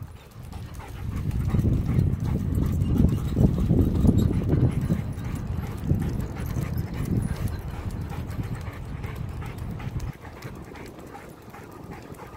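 Wind buffeting the microphone of a moving bicycle, gusting, then dropping away suddenly about ten seconds in. Under it are light, quick clicks and patter from a German Shepherd trotting beside the bike on pavement.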